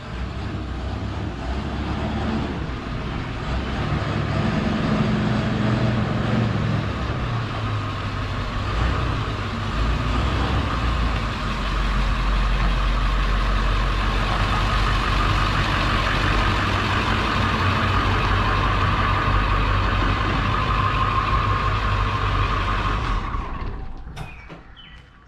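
Truck driving, with steady engine and road noise that dies away near the end.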